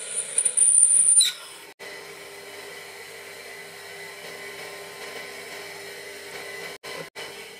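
Proxxon FF 230 mini mill drilling stainless steel with a twist drill: a loud, high-pitched whine that stops about a second in. The mill's spindle then runs on steadily and more quietly.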